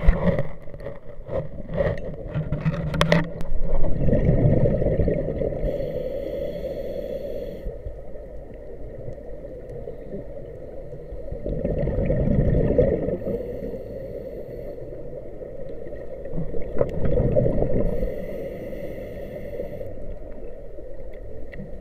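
Scuba diver breathing through a regulator underwater: three louder swells of gurgling exhaled bubbles, with a thin high hiss from the regulator between them, over a steady underwater rumble.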